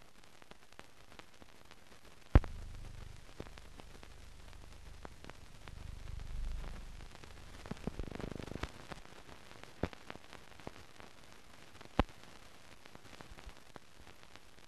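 No recorded sound, only the surface noise of a silent film transfer: steady hiss with scattered clicks. A sharp pop comes about two seconds in, then a low rumble for several seconds, and another pop near the end.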